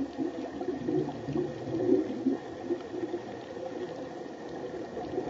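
Underwater water noise picked up by a camera below the surface: a muffled, uneven sloshing and gurgling, low in pitch.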